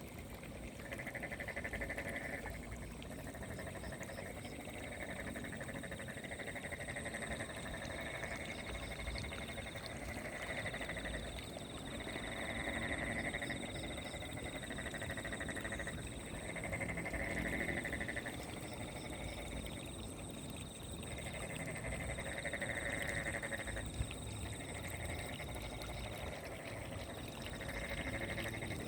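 Frogs calling at night: pulsing calls a second or two long, repeating every few seconds, over a steady high-pitched trill.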